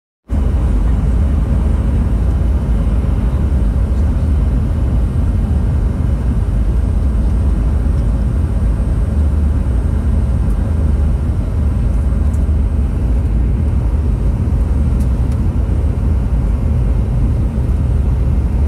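Steady, loud low rumble of a Boeing 717 heard from inside the passenger cabin: the drone of its two rear-mounted Rolls-Royce BR715 turbofans and airflow over the fuselage, heavy in the bass, without a break.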